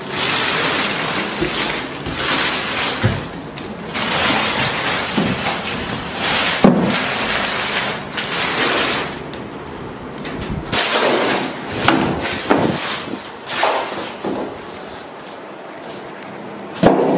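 Cardboard TV box and plastic wrapping being handled: bouts of rustling and crinkling broken by several knocks and thuds as the box is pulled off and the television lifted out.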